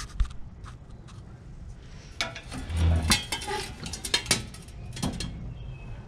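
Irregular metallic clanks, clinks and knocks as a push reel lawn mower is handled and turned around on a glass-topped table, its metal frame and wheels knocking against the glass.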